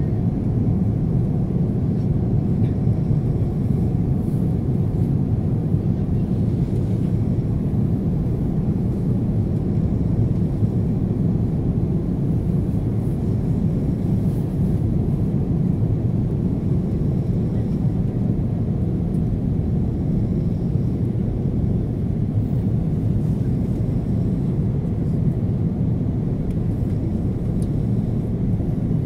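Steady low rumble of a jet airliner's cabin on approach to landing: engine and airflow noise heard from inside, holding an even level throughout.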